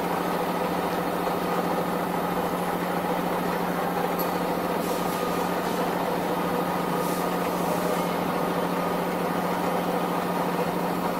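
Metal lathe turning down a metal roller shaft, its cutting tool taking a cut along the surface: a steady, even machine hum with a constant low drone.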